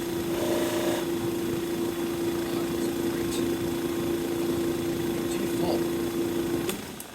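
Electric bench buffer running with a steady hum while buffing, then switched off near the end with a click.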